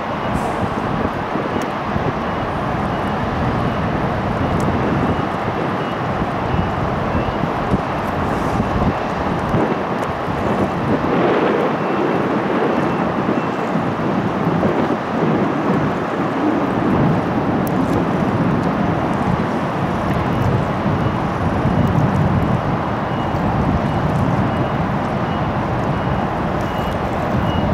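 Wind buffeting an outdoor microphone over a steady low rumble of harbour and distant ship noise, with a faint high pip repeating evenly in the background.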